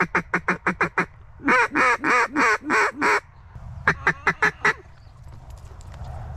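Mallard duck call blown close by: a quick run of short quacks, then five longer, drawn-out quacks, then another short run of quacks about four seconds in.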